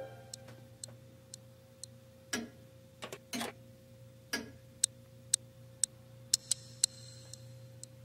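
A clock ticking quietly, about two ticks a second, with a few soft knocks in the middle.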